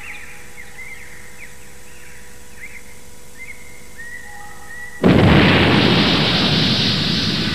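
Cartoon explosion sound effect: about five seconds in, a sudden loud blast that slowly dies away, as a cloud of smoke bursts out. Before it, soft bird chirps.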